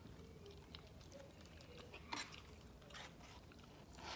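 Faint eating sounds: quiet chewing and a few light clicks of a fork against a takeout container. The sharpest click comes about two seconds in, and another near the end.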